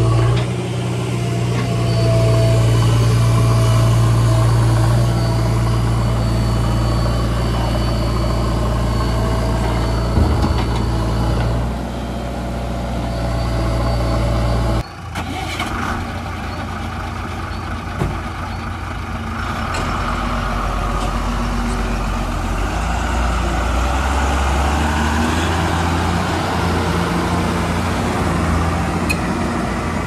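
JCB 3DX backhoe's diesel engine running steadily close by. After a sudden cut about halfway, a heavy diesel engine runs with its pitch shifting as the loaded Tata tipper truck moves off.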